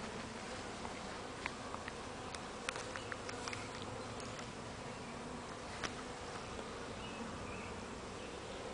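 Honeybees humming over an open hive: a steady drone from the colony on the exposed frames, with a few faint clicks in the first half.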